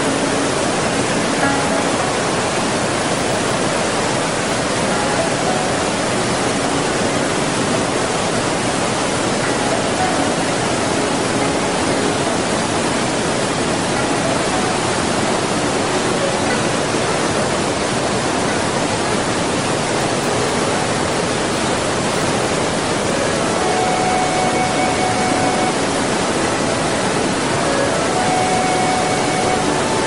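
Steady, even rush of a large waterfall's white water. A few faint held tones come through near the end.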